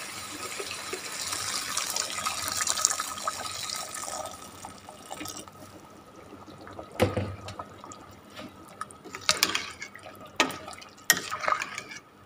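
Water pouring into a metal cooking pot of fried chicken and vegetables, the rush rising over about four seconds and then stopping. After it come a few sharp clicks and knocks of a metal spoon against the pot.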